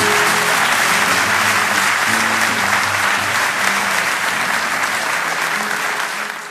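Audience applauding steadily, with music playing underneath; both begin to fade out near the end.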